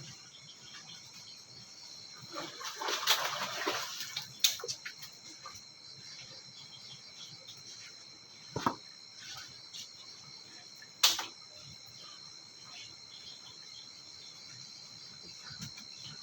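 Water splashing for about a second and a half, a couple of seconds in, followed by a few sharp knocks, over steady insect chirring.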